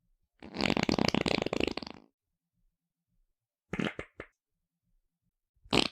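Fart sound effects: one long sputtering fart lasting about a second and a half, then two or three short quick ones near four seconds in, and one more short fart at the end.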